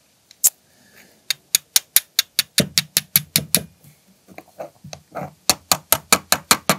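Steel fire striker struck repeatedly against flint to throw sparks onto fungus tinder, giving sharp scraping clicks at about four a second. There are two runs of strikes with a short pause between them.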